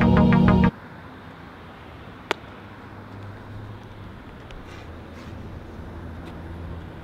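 Electronic background music cuts off abruptly under a second in. It is followed by the low, steady rumble of outdoor traffic, with one sharp click a little after two seconds in.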